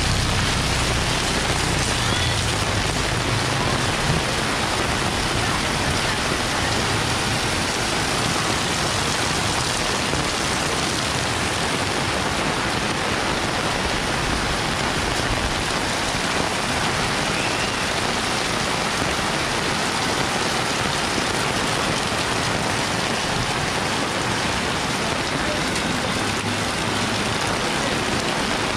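Super heavy rain pouring down, a steady, dense hiss. A low rumble fades out in the first two seconds.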